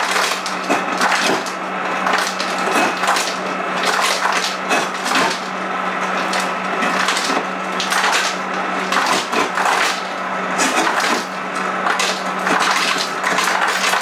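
Whirlpool WRS588FIHZ refrigerator door dispenser dropping cubed ice into a cup: a steady, dense clatter of cubes tumbling down the chute and knocking into the cup, over a steady motor hum.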